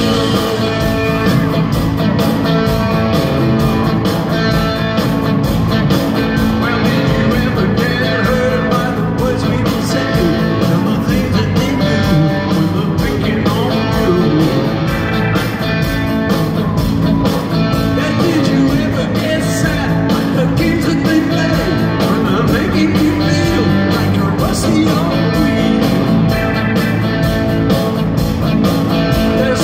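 A live rock band played over an arena PA: a male lead vocal over electric guitars, electric bass, keyboards and drums, at a steady, full level.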